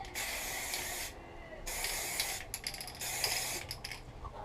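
Aerosol spray paint can (rattle can) sprayed in three bursts of about a second each, hissing, with short gaps between them.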